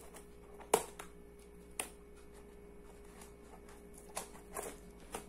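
Scissors snipping through a plastic-sleeved cardboard package: a few separate sharp snips, the loudest about a second in and a cluster near the end.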